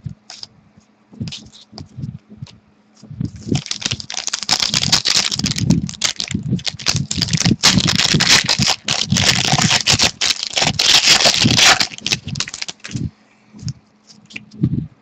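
Trading-card pack wrapper crinkling and tearing as a pack is opened, a dense crackle for about nine seconds from about three seconds in, with lighter clicks of card handling before and after.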